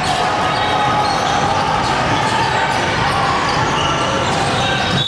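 Basketball bouncing on a gym court during a game, with voices in the background.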